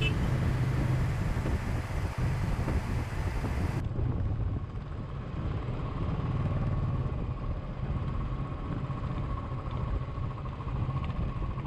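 Royal Enfield motorcycle engine running steadily on the ride. About four seconds in the sound changes abruptly as the high hiss drops away.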